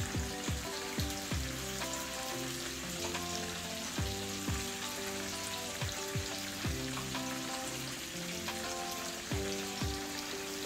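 Hot oil sizzling steadily as festival dough dumplings and split lobster tails deep-fry, under background music with a steady beat.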